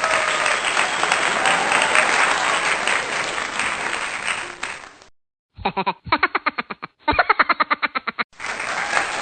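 Applause-like crowd clapping that cuts off abruptly about five seconds in. After a brief silence comes a quick run of rapid pitched stutters, several a second, and then the clapping resumes near the end.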